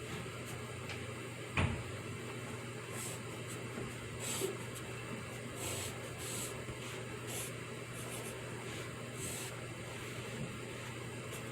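Pencil writing on paper in short scratching strokes over a steady background hum, with a single knock about one and a half seconds in.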